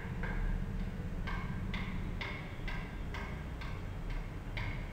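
Background music: short, bright ticking notes in a steady pulse of about two a second, changing pitch from note to note, over a steady low bass.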